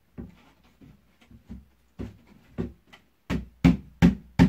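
Knocks on a melamine-faced chipboard bed-frame panel as it is tapped down into place on its pegs: a few light taps, then four hard knocks about 0.4 s apart in the last second and a half.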